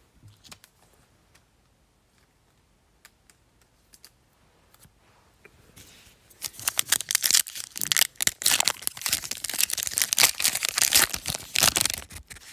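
Foil wrapper of an NBA Hoops Premium Stock trading-card pack crinkling and tearing as it is ripped open by hand, starting about six seconds in after a few light taps.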